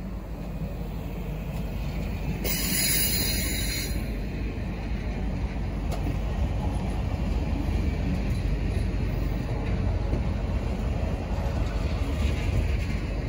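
Union Pacific streamlined passenger cars rolling past: a steady rumble of steel wheels on rail, with a brief high squeal about two and a half seconds in.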